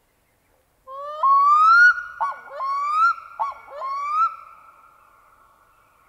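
Black-throated loon calling: a rising wail followed by three rising, whistled phrases, each broken by a short, lower dipping note. The last phrase trails off in a long fading echo.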